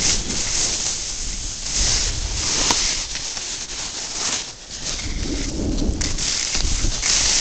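Snowboard sliding and scraping over snow, with wind rushing over the camera's microphone as it rides. A steady, loud rush that dips briefly about four and a half seconds in before a lower rumble returns.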